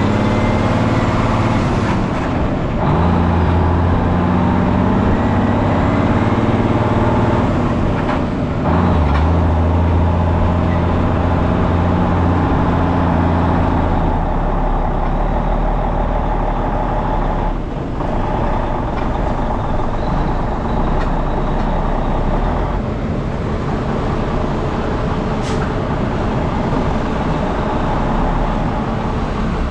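Loaded grain truck's engine running as it drives off. The engine note shifts twice in the first ten seconds, then settles into a lower, steady drone from about halfway through.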